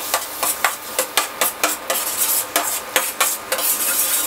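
Spoon scraping and clinking around a stainless steel kadai at about three strokes a second, stirring butter as it melts, over a steady sizzle from the melting butter.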